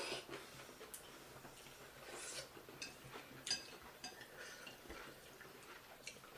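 Mukbang eating sounds: faint, close-miked mouth and chewing noises with a utensil clinking against a plate now and then, the sharpest clink about three and a half seconds in.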